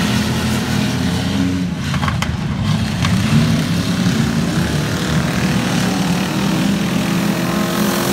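Several dirt-track race car engines running around the oval, revving up and down in pitch as the cars go through the turns and pass close by.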